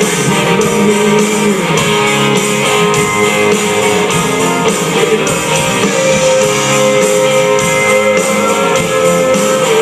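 Live country band playing an instrumental passage led by guitars, with strummed chords under long held notes.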